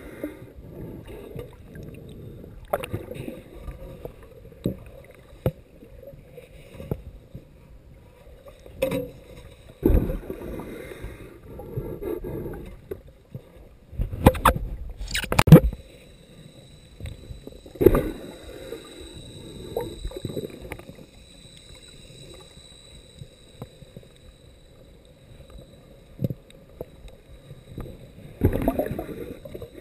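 Shallow sea water heard underwater: muffled sloshing and rushing of the surge, with scattered knocks and thumps, loudest about fourteen to sixteen seconds in. A faint steady high whine enters about halfway through.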